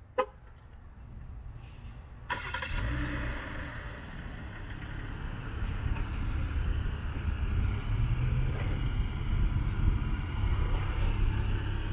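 A sharp click, then about two seconds in a 2020 Jeep Cherokee Limited's engine starts by remote start and settles into a steady idle that slowly grows louder.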